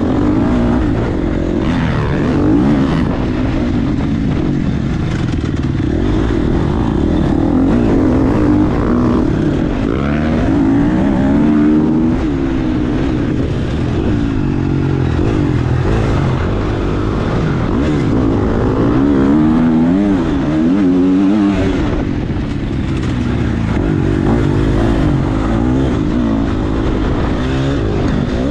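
Dirt bike engine revving up and down over and over as the bike is ridden hard through a cross-country course.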